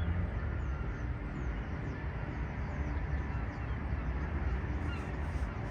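Steady low rumble of outdoor town ambience, with no distinct events.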